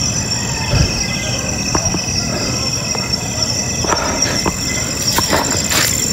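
Night insects, crickets among them, trilling steadily at a high pitch, with scattered faint clicks and rustles over a low noisy background.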